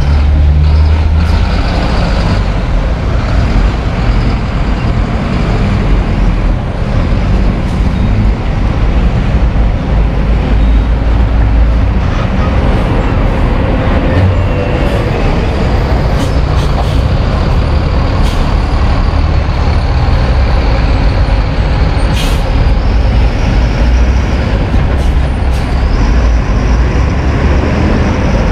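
Diesel city buses running close by as they pull in and out of the terminal, a steady low engine rumble, with a few short air-brake hisses.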